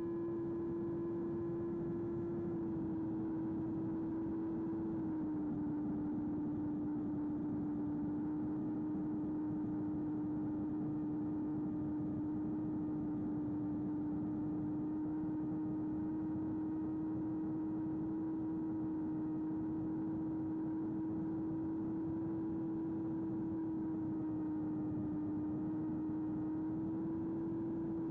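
Electric motor and propeller of a small FPV flying wing running at steady cruise throttle: a steady hum over a rush of air, the pitch dipping slightly about five seconds in and rising a little near the end.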